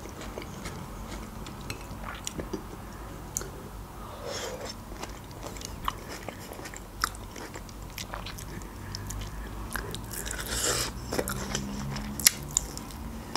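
Close-miked mukbang-style chewing of food, with wet mouth clicks and smacks scattered throughout and a louder click shortly before the end.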